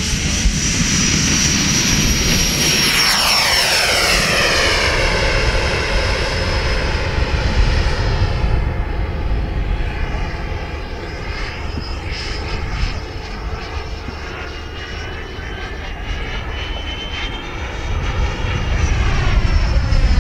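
Electric ducted-fan model Viper Jet taking off and flying: a high fan whine that sweeps down in pitch as the jet passes in the first few seconds, then carries on fainter and wavering as it flies off, growing louder again near the end.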